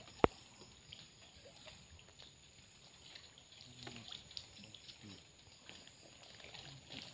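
Soft, irregular water splashing and dripping as people wade chest-deep in a muddy stream and lift a gill net out of the water. One sharp knock about a quarter second in stands out above the splashing.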